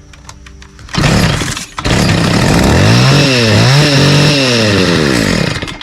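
Stihl FS 55 R string trimmer's two-stroke engine idling, then revved hard when the throttle is squeezed: a short burst, then held at high revs with the pitch rising and falling, and back down near the end. The test run of the newly replaced throttle trigger and cable shows the throttle now works.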